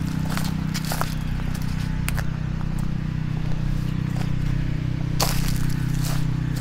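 Footsteps crunching and crackling on dry fallen leaves and debris, uneven, with a few sharper crackles, over a steady low hum.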